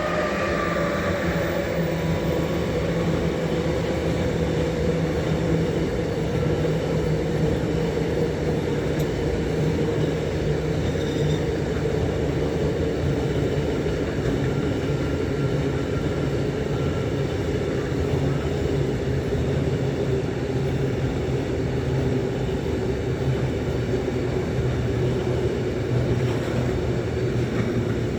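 Train rolling past at close range: a steady rumble of wheels on the rails, with a low hum whose pitch sinks slowly.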